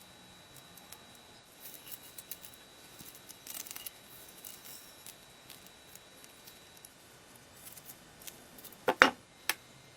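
Faint scattered clicks and light scrapes of small hard objects being handled, then two sharp knocks about half a second apart near the end, the first the loudest.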